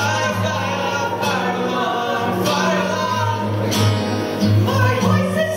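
Singing over instrumental accompaniment, with steady low held notes underneath the wavering voices.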